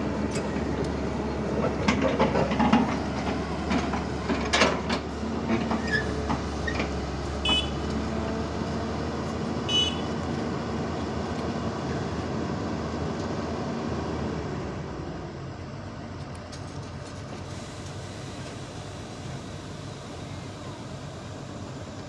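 Hyundai 210 crawler excavator's diesel engine running under load, with sharp metal clanks in the first few seconds. About fifteen seconds in the engine drops to a quieter, steady idle.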